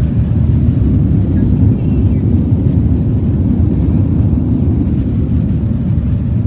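Steady low rumble in a jet airliner's cabin as it moves on the ground with its engines running.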